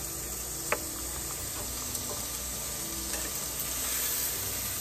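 Steak and hamburger patties sizzling steadily on the hot plate of a Power XL Smokeless Grill while the steak is lifted and turned with tongs, with a single sharp click under a second in.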